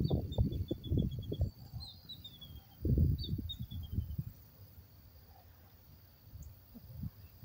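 Pit bull panting in quick breaths, strongest for the first second and a half and again about three seconds in, then trailing off. Over it a bird gives three descending runs of high chirps, with a faint steady high insect tone.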